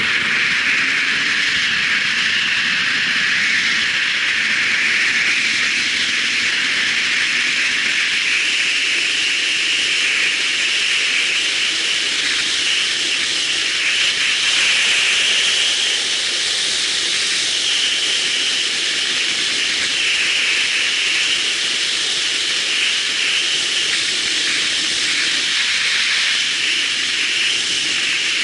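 Wind rushing over an action camera's microphone on a moving motorcycle: a loud, steady hiss. Underneath, the motorcycle's engine is faintly heard rising in pitch as it pulls away in the first couple of seconds.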